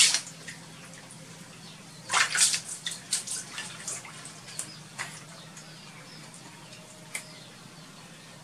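Water splashing and sloshing in a plastic tub as a baby monkey ducks and rolls about in it: a sharp splash at the start, a flurry of splashes about two seconds in, then a few lighter single splashes.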